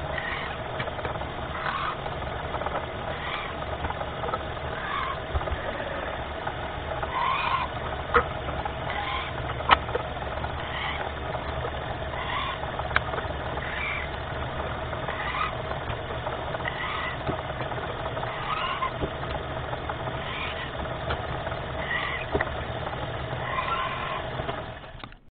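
Drill press running steadily while holes are drilled through thick white plastic plate. A short chirp comes about every second and a half, and a few sharp clicks come around the middle.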